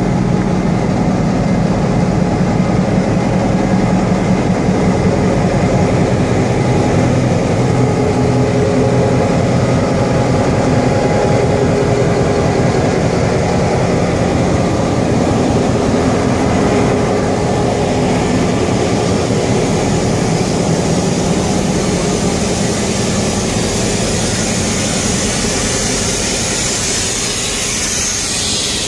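EMD 16-567B V16 two-stroke diesel engine of Western Pacific F7 locomotive #917D running steadily, a dense low rhythmic diesel beat with no change in speed.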